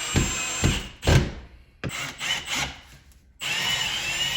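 Power drill driving screws: a run of the motor at the start, several short bursts in the middle, then after a brief pause a longer steady run with a high whine near the end.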